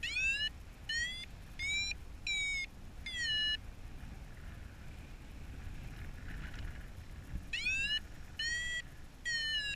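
A paragliding variometer beeping its climb tone. Five half-second beeps, each swooping up in pitch at its start, come in quick succession. They break off for about four seconds and resume near the end, a sign that the glider is climbing in a thermal and the lift comes and goes. Wind rumble on the microphone runs underneath.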